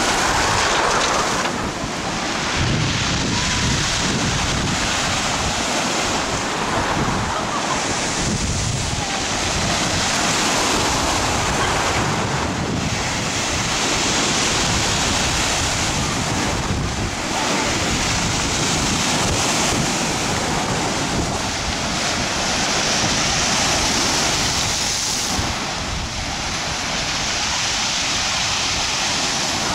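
Rough sea surf breaking and washing on a beach, swelling and easing every few seconds, with wind buffeting the microphone.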